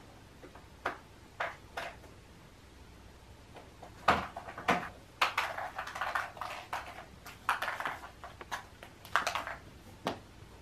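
Hollow plastic Easter eggs clicking and clattering on a tile floor as cats bat them about: a few light clicks at first, then a busy run of knocks and rattles for several seconds, and one last knock near the end.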